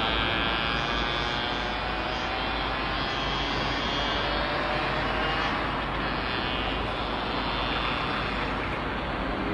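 Heavy construction machinery engines running steadily, a dense mechanical drone that eases slightly over the first couple of seconds and then holds.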